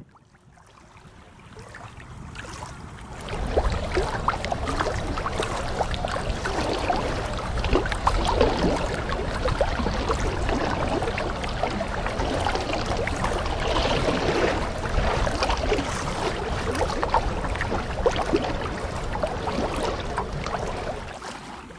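Steady rushing and splashing of water with many small crackles, fading in over the first three seconds or so and fading out at the very end.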